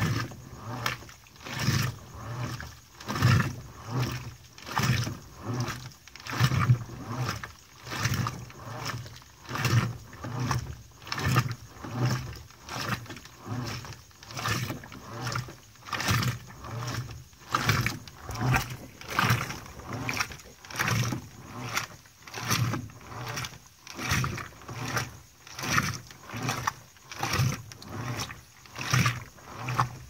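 Electrolux LDD16 16 kg top-load washing machine agitating a load at its extra-low water level: water and clothes slosh with each stroke of the agitator in a steady rhythm of about five swishes every four seconds.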